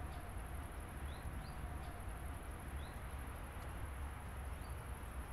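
Park ambience: a bird giving short, high, rising chirps about five times, spaced a second or so apart, over a steady low rumble and a thin steady high hiss.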